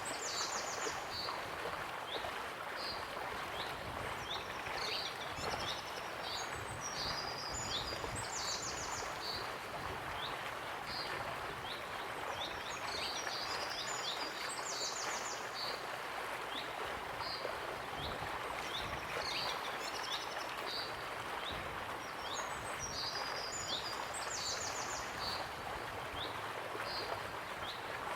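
Waterfall running steadily, with songbirds singing short, high chirping phrases over it. A similar burst of song comes back about every six seconds.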